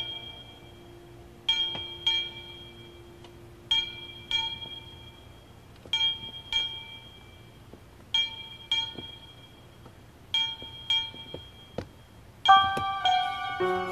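Background music: a bell-like chime struck twice in quick succession, the pair repeating about every two seconds. Fuller sustained chords join near the end.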